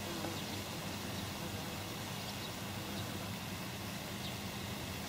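Steady outdoor background noise: an even hiss with a low hum under it, and a few faint, short high chirps scattered through it.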